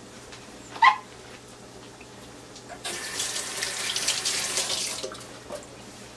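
Kitchen tap running for about two seconds, starting about three seconds in and then shut off. A short, sharp sound comes about a second in.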